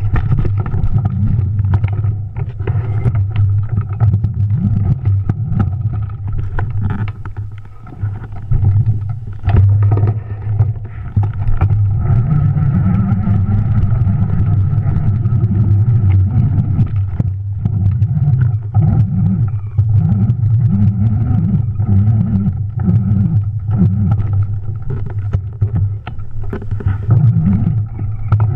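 Juiced RipCurrent S e-bike's electric motor whining steadily, carried straight into the camera through a rigid aluminium mount, over a heavy low rumble. Frequent knocks and rattles come from the bike jolting over a rough dirt trail.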